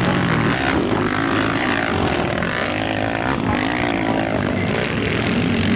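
Several 250cc motocross bikes racing, their engines revving up and down at different pitches and overlapping.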